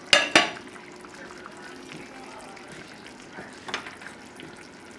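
Chicken braising in tomato sauce, simmering in an uncovered sauté pan with a soft, steady bubbling hiss. Two short clatters at the very start and a faint click a little before the end.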